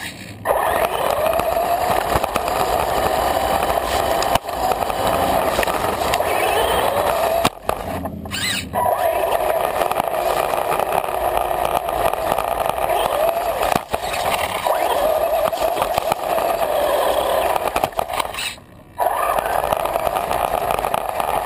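Radio-controlled car's motor and drivetrain whining, rising and falling in pitch with speed, heard from on board, with its tyres grinding over gravel and dry leaves. The motor cuts out briefly twice, about eight seconds in and near the end.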